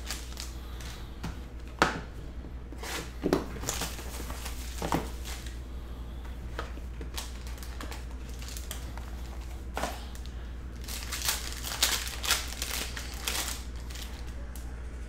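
Foil wrapper of a Topps Tier One baseball card pack crinkling and tearing as it is handled and opened by hand, in irregular crackles with a denser run of louder ones near the end.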